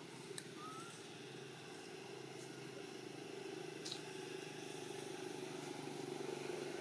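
Steady low hum of a motor vehicle engine running, slowly growing louder, with a couple of faint clicks and a short rising squeak near the start.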